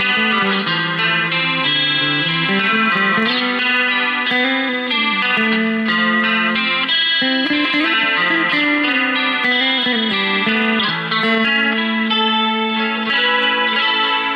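Telecaster-style electric guitar, played continuously in a run of single notes and chords, some notes sliding or bent in pitch.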